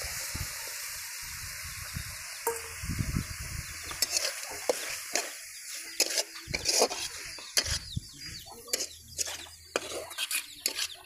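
Shelled snails sizzling in hot oil and spice paste in a steel kadai. From about four seconds in, a steel spatula stirs them, with repeated scraping and clinking strokes against the pan over the sizzle.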